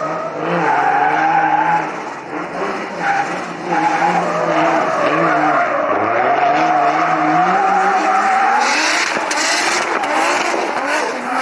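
A rear-wheel-drive car's engine revving up and down hard while its rear tyres skid through drift turns. The revs climb sharply about six seconds in.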